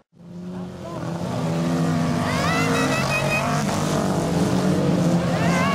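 Several super stock car engines running together as a pack races on a dirt track, their pitch rising and falling as the drivers rev. The sound fades in from a brief silence at the start and is loud from about two seconds in.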